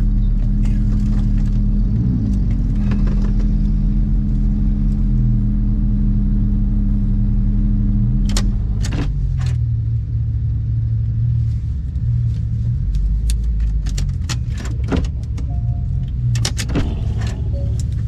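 Porsche 911 GT3 Touring (991.2) flat-six engine running at a steady engine speed, then easing off about halfway through to a lower hum. A scatter of sharp clicks and rattles comes in the second half.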